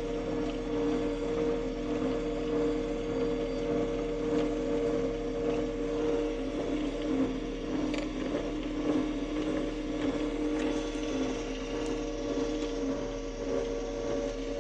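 Combine harvester running steadily while harvesting: an even mechanical drone with a constant whine.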